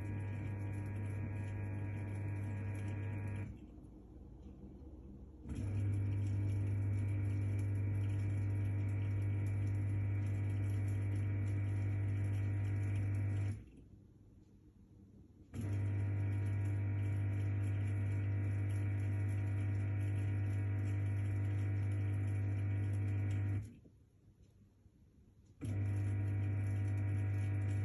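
Hotpoint-Ariston dishwasher's pump motor humming steadily. It cuts out for about two seconds three times, roughly every ten seconds, then starts again. The machine is in a fault state with its indicator lights blinking.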